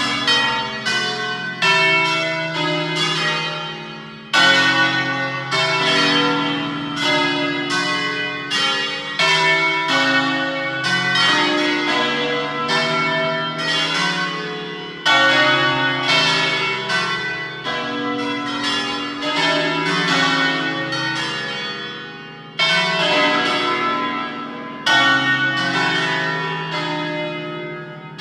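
A ring of eight church bells playing a solemn concerto, a pre-programmed melodic sequence, with several strikes a second and each bell ringing on under the next. Fresh loud phrases start about four seconds in, in the middle, and twice near the end.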